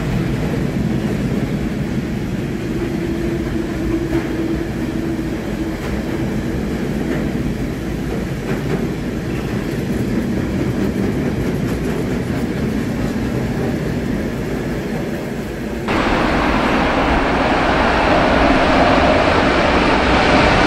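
Freight train of tank wagons rolling past, a steady rumble of steel wheels on the rails with faint clickety-clack at the rail joints. About 16 s in it cuts abruptly to a louder, brighter sound: a Siemens Vectron electric locomotive with a container train approaching, with a steady whine rising out of the rumble near the end.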